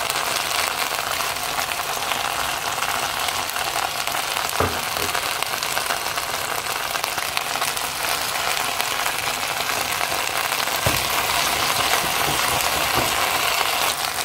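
Tomato paste frying with boiled lamb and okra in a nonstick pan: a steady sizzle, with a wooden spoon stirring. Two short knocks, about four and a half and eleven seconds in.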